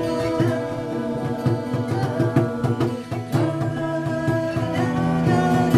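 Instrumental background music: held notes with a run of regular percussive strokes.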